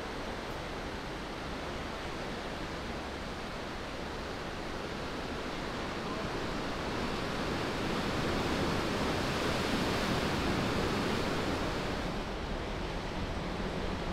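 Sea surf breaking and washing over rocks: a steady rushing noise that swells about halfway through and eases again near the end.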